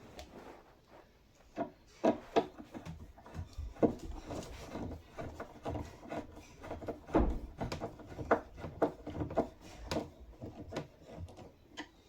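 Cabinet door hinge being worked back onto its mounting screw on a wooden cabinet: irregular clicks, knocks and rubbing scrapes of metal against wood.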